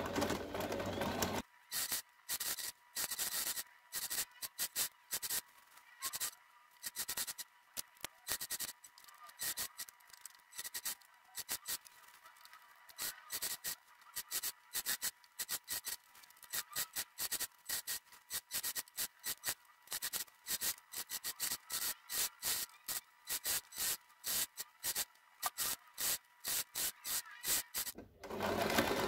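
Domestic electric sewing machine stitching: steady running for about the first second and again near the end, with rapid, irregular, choppy ticking in between.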